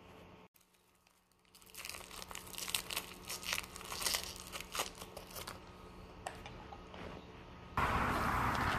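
Clear plastic wrapper crinkling and crackling in the fingers, in quick irregular clicks, as it is handled and opened. About a second before the end it gives way abruptly to a louder, steady outdoor rushing noise.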